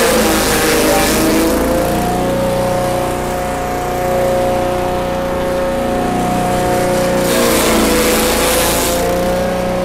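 Forage chopper running steadily with a steady whine, while bundles of leaves are fed into its top hopper and shredded. Twice, near the start and again about seven seconds in, the machine's pitch sags under the load, with a rushing, shredding noise as the leaves are cut.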